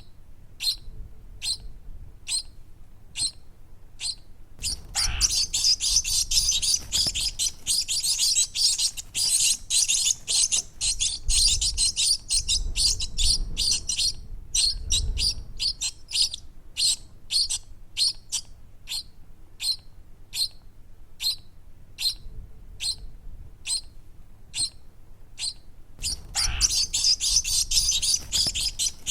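Baby birds chirping: short high chirps about two a second, breaking into a dense, rapid chorus of many overlapping chirps about five seconds in and again near the end.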